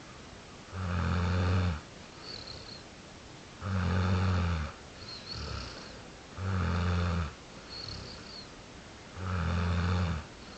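Loud, regular snoring: four deep snores about every three seconds, each lasting about a second. A faint whistling breath comes between them.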